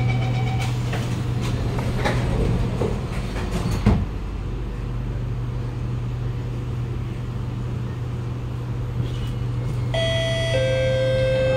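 Cabin running noise of a Kawasaki Nippon Sharyo C751B metro train pulling away and running between stations: a steady low hum with rattles and a sharp knock about four seconds in. Near the end an electronic chime of several held tones sounds, ahead of the next-station announcement.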